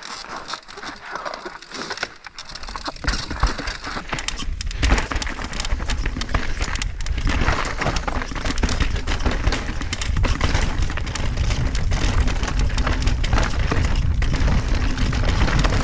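Full-suspension mountain bike descending a rough, rocky dirt trail: tyres crunching over rock and loose gravel and the bike rattling in a dense run of irregular clicks and knocks. From about three seconds in a steady low rumble joins it and stays.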